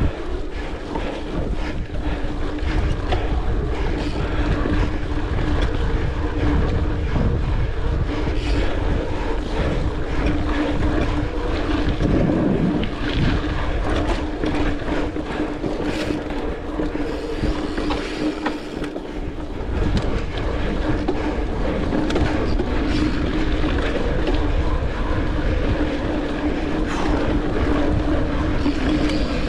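Mountain bike ridden along a dirt singletrack trail: a steady hum from the rolling bike, many small clicks and rattles from the bike over the ground, and heavy wind rumble on the microphone.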